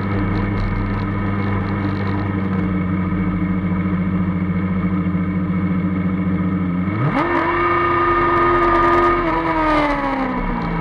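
Formula Student race car's drivetrain running steadily at low speed, then revving up quickly about seven seconds in, holding the higher pitch for a couple of seconds, and easing off near the end.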